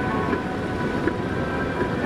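Steady road and engine rumble inside a moving car's cabin, with music from the car stereo underneath holding several long sustained tones.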